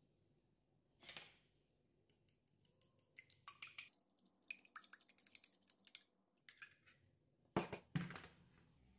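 A fork beating an egg in a small glass bowl: a quick run of light metal-on-glass clinks lasting a few seconds. A single knock comes about a second in, and two sharper knocks near the end.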